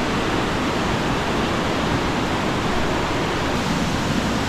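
Waterfall water pouring down and crashing, a loud steady rush with no pauses.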